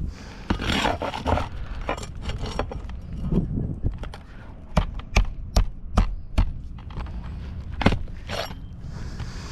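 Irregular scraping and knocking of hard objects, with a run of sharp separate taps and clicks in the middle.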